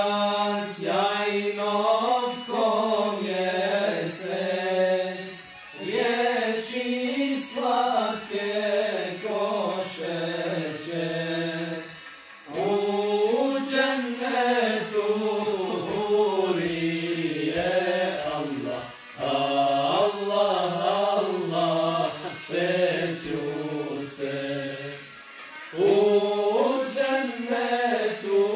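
Men singing an unaccompanied ilahija, a Bosnian Islamic devotional song, in long ornamented phrases with short breaths between them about every six to seven seconds.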